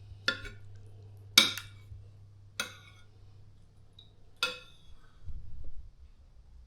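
Cutlery clinking against plates while eating: four sharp, ringing clinks a second or two apart, then a soft low rumble near the end.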